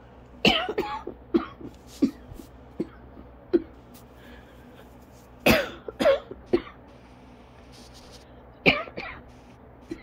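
A person coughing hard and repeatedly in an asthma coughing fit they cannot stop. Several coughs come in a quick cluster about half a second in, then single sharp coughs roughly once a second, another cluster of three about five and a half seconds in, and two more near the end.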